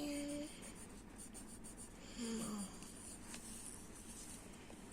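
Pencil writing faintly on paper, with a brief hummed 'mm' from a child at the start and another, falling in pitch, about two seconds in.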